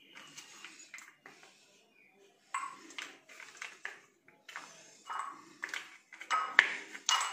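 Plastic heart-shaped ice-cube tray flexed and pressed as set chocolates are popped out of its cups, giving irregular clicks, crackles and clatter, with pieces dropping into a glass bowl. The busiest clatter comes in the second half.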